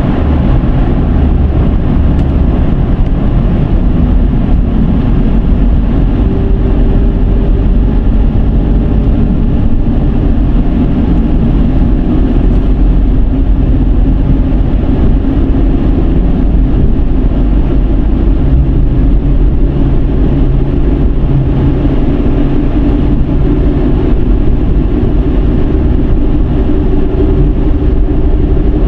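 Dodge Charger with its 3.5-litre V6 driving at road speed: steady tyre and road noise with a low engine hum that shifts slowly in pitch.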